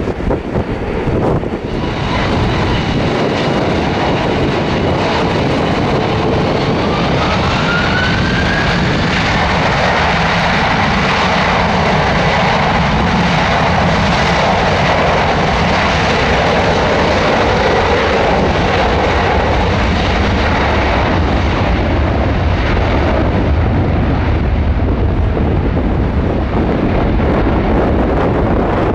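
Jet airliner's engines passing close by: a loud, steady rush of engine noise that swells, then settles into a low rumble, with a thin whine rising in pitch about seven seconds in. Wind buffets the microphone at the start.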